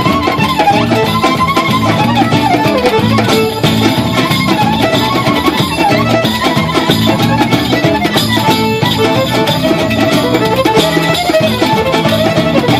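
Violin playing a winding, ornamented melody over a steady rhythmic string accompaniment: an instrumental tune in Romanian gypsy style.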